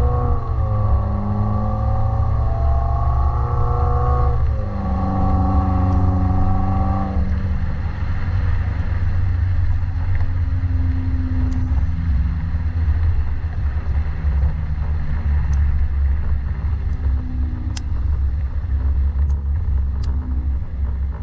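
2018 Subaru WRX's turbocharged flat-four breathing through a Nameless axle-back exhaust, heard from inside the cabin while driving. The engine note climbs under throttle, drops about four and a half seconds in and holds. From about seven seconds on it eases off to a steady low rumble.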